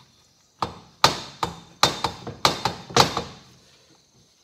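Sharp metallic knocks, about eight in two and a half seconds, as the camshaft is rocked and knocked loose from a Kawasaki Bayou 220 cylinder head. It sticks because a rocker arm is resting on a cam lobe.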